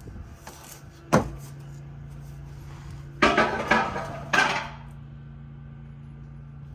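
Metal parts and hand tools clanking while work goes on under a car: one sharp knock about a second in, then a burst of clattering knocks a couple of seconds later. A steady low hum runs underneath.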